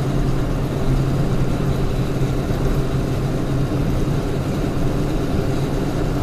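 Steady engine drone and tyre-on-road noise heard from inside a truck's cab cruising at highway speed, with a constant low hum.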